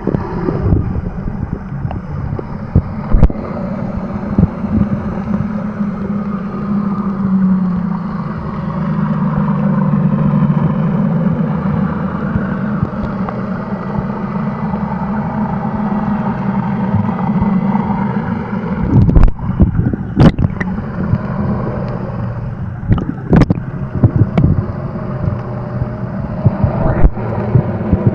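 Boat motor heard through the water while the microphone is submerged: a steady, muffled rumbling hum. A few sharp knocks come about two-thirds of the way in.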